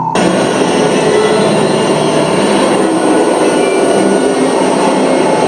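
A loud, dense wall of noise cuts in suddenly right at the start, replacing a droning tone, and holds steady throughout.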